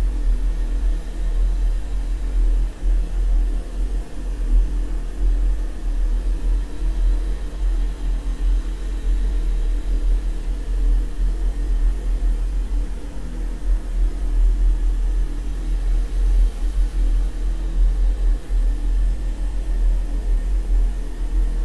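A continuous low rumble that flutters in loudness, with a fainter hum above it.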